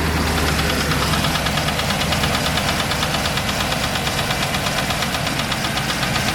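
Land Rover Discovery II 3.9 V8 idling from cold with a steady, rhythmic knock or tick. One mechanic calls it a failed big-end bearing, while the owner suspects the valve gear: rockers or lifters.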